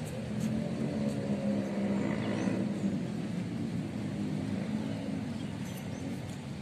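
Small outboard motor on a boat running steadily under way, its hum a little louder in the first few seconds and easing off toward the end.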